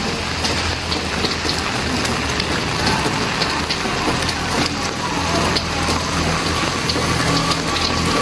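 Heavy rain pouring onto a paved street: a steady hiss dotted with the ticks of nearby drops. In the second half a motor vehicle's engine hums low underneath, with a motorcycle coming up the road.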